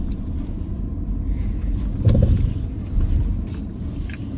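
Steady low rumble inside a car cabin, with a brief louder low sound about two seconds in and a few faint ticks.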